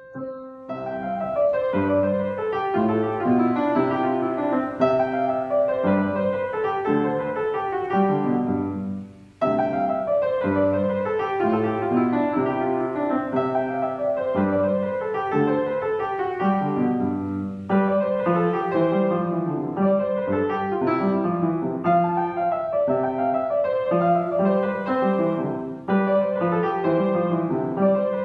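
A child playing a Classical-period piano piece, note after note, on a digital piano. About nine seconds in it stops abruptly and a different piece starts on an upright acoustic piano, played at a lively pace.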